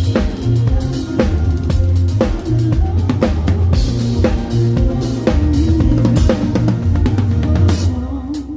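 Live band music: a drum kit keeps a steady beat with kick and snare over a heavy bass line, with other instruments moving above it.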